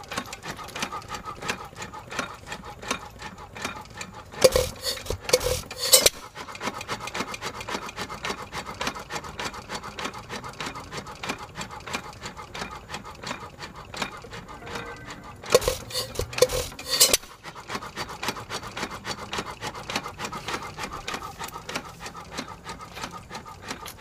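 4 hp Nelson Brothers hit-and-miss engine running: fast, steady clicking as it coasts on its flywheels, broken twice, about 11 seconds apart, by a short run of louder firing strokes. The owner suspects it is somewhat low on gas.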